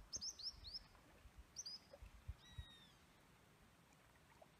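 Faint bird chirps: a quick run of four short falling notes, two more just before two seconds in, and one longer falling note at about two and a half seconds.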